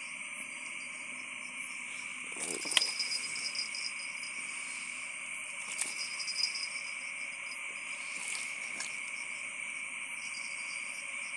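Steady chorus of crickets and other night insects, with short bursts of slapping and scuffling about two and a half seconds and six seconds in as a freshly landed fish flops and is handled on wet mud.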